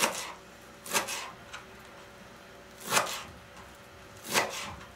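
Kitchen knife chopping fresh dill on a plastic cutting board: four sharp chops with pauses of one to two seconds between them.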